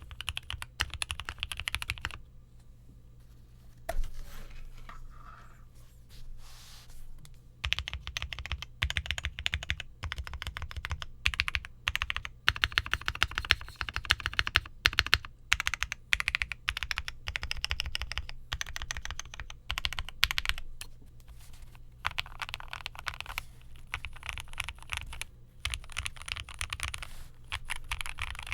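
Typing on a Piggy 60 mechanical keyboard with lubed and filmed Lavender linear switches, a polycarbonate plate and GMK keycaps: quick runs of key presses, with a pause of about five seconds after the first two seconds broken by a single key press, then typing again to the end.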